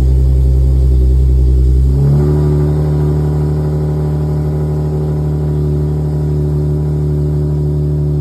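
Nissan 370Z's 3.7-litre V6 engine running while driving, heard from inside the cabin as the six-speed manual is clutched and shifted. About two seconds in the engine tone changes, its pitch stepping up slightly, then holds steady.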